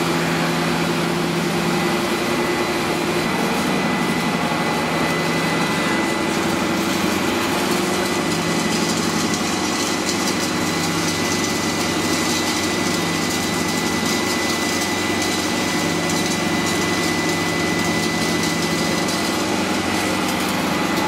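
Plastic recycling plant machinery running steadily: a continuous electric motor hum with a thin high whine over it.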